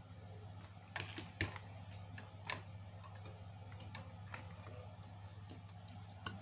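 Scattered light clicks and ticks of an audio cable and its wires being handled and moved around inside a wooden amplifier case, with the sharpest click about one and a half seconds in. A steady low hum runs beneath.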